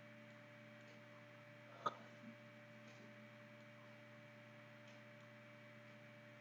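Near silence: a steady low electrical hum, with one sharp click about two seconds in and a fainter one just after.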